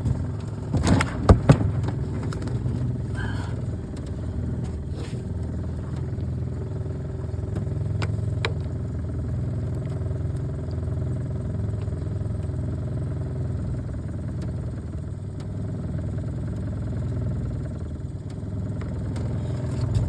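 Small boat's outboard motor running steadily at low speed. A few sharp knocks and some clatter about a second in.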